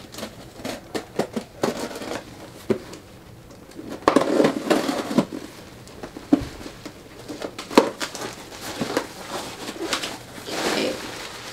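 A cardboard box being cut and pulled open by hand, with its packaging rustled and crinkled. The sound is irregular clicks and scrapes, with louder rustling about four seconds in and again near the end.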